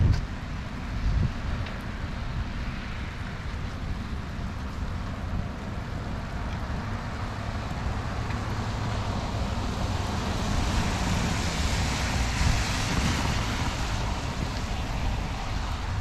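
Wind buffeting the microphone in a low, unsteady rumble over a steady hiss of rain. In the second half, a car's tyres hissing on the wet road swell up and ease off as it passes.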